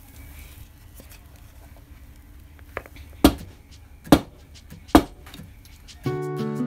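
A metal cooking pot full of cake batter tapped down three times, a little under a second apart, to knock air pockets out of the batter. Guitar music starts near the end.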